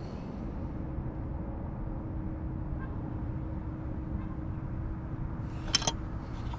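Steady low outdoor rumble with a faint steady hum; near the end, a quick cluster of sharp clicks from handling the outboard's spark plugs and plug wires.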